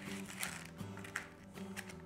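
Soft background music of held chords that change every second or so, with a few faint light taps over it.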